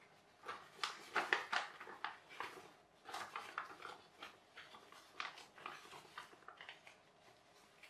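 A sheet of paper being folded and creased by hand: a run of crisp crackles and rustles, densest in the first few seconds and thinning out toward the end.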